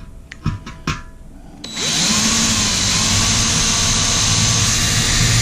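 A couple of sharp knocks, then just under two seconds in an electric drill starts, spins up and runs steadily, boring through the thin enamelled steel lid of a Weber 22-inch kettle grill.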